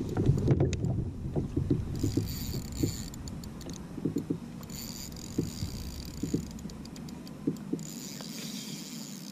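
Water slapping and knocking against a fishing kayak's hull, with a spinning reel being wound in three short spells of a fine ticking whirr while a hooked fish is played.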